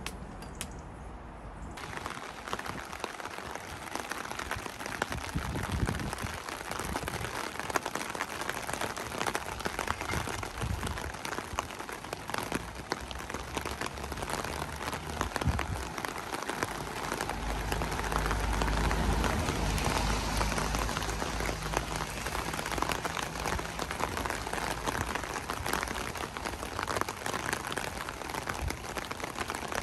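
Steady rain falling and pattering on surfaces, a dense hiss full of individual drop strikes. About two seconds in it suddenly gets louder and brighter. Later, a low rumble swells under the rain for a few seconds and then fades.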